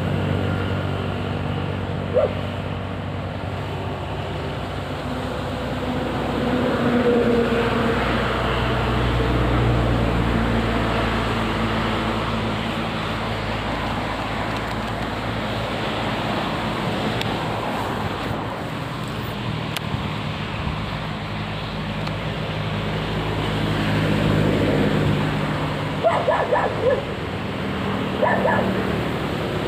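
A dog barks several times in short bursts near the end, over a steady low engine hum.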